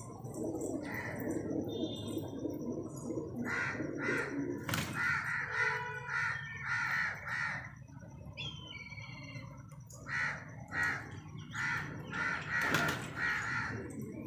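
A low murmur of pigeons cooing, then two runs of short, harsh, caw-like bird calls, several a second, with a few faint high chirps between them.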